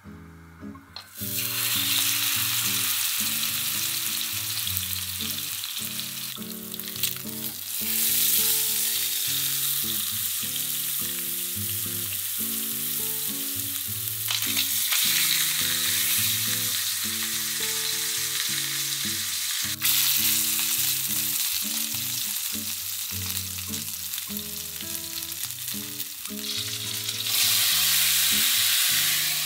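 A block of beef searing in hot oil in a wok, sizzling steadily from about a second in. Near the end, sake poured into the hot pan makes the sizzle jump louder with a burst of steam.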